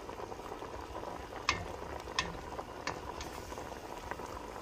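Caramelized sauce sizzling and bubbling in a stainless steel pot of fish steaks and tomatoes while a wooden spatula stirs. The spatula knocks sharply against the pot three times in the middle.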